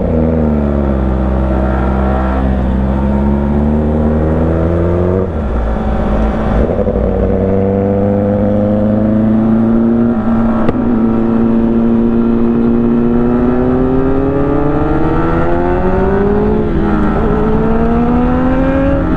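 Sport motorcycle engine pulling under load while riding, its pitch climbing slowly through each gear. The pitch drops at a gear change about five seconds in and again about seventeen seconds in.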